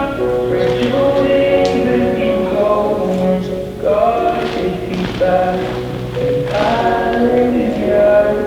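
A slow ballad played for a performance, with sustained choir-like voices holding chords between sung lines.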